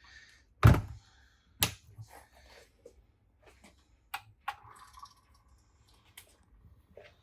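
Clicks and knocks of hands working a single-serve coffee maker's plastic parts, with a sharp knock just under a second in, another about a second later, then several lighter clicks.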